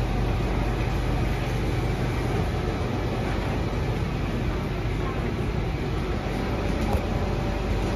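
Steady low hum and rumble inside a stationary Kawasaki & Nippon Sharyo C751B metro train car as it stands at the platform with its doors open.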